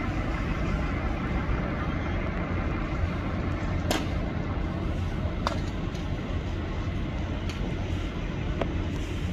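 Heavy diesel machinery running steadily, with four sharp knocks spread through the middle and latter part.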